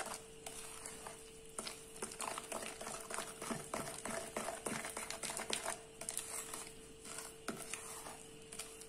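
Wooden spoon creaming butter and sugar in a glass bowl: soft scraping of the thick mixture with irregular clicks and taps of the spoon against the glass.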